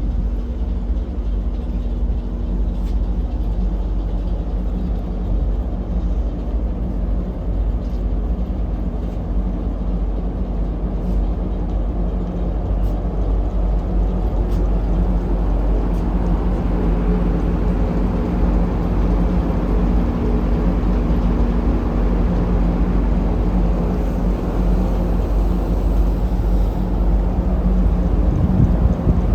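A ship's engine droning steadily: a deep rumble with a low hum. A rushing hiss grows a little louder about halfway through.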